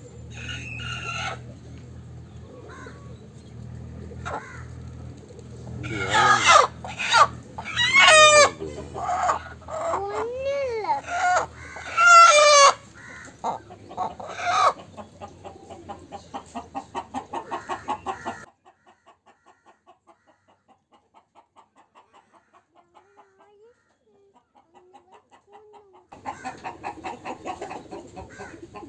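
Chickens squawking and calling loudly for several seconds, starting about six seconds in, then a fast, even run of clucks that drops almost to silence in the middle and comes back near the end.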